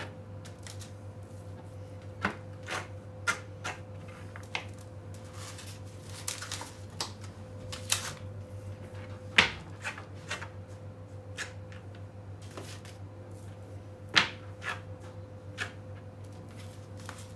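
Irregular taps, clicks and scrapes as lamb chops are scraped clean of bone dust with a hand scraper and set down on meat trays on a cutting board, with two sharper knocks about nine and fourteen seconds in. A steady low hum runs underneath.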